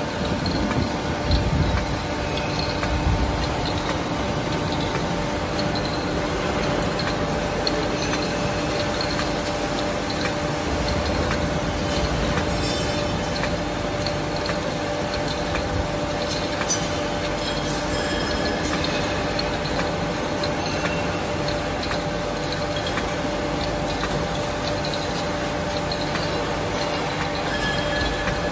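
Aluminium tube latexing and packaging machine running: a steady mechanical hum from its motors and blower, with faint ticking from the conveyor and a few low thumps near the start.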